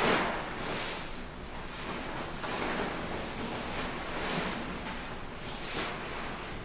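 Large fabric sheets being handled, gathered and bundled: a run of rustling swishes that come and go every second or two.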